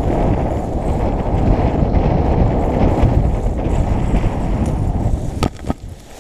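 Wind buffeting the microphone of a camera on a paraglider riser during the low, fast landing approach. It eases off near the end, followed by a few sharp knocks as the pilot touches down.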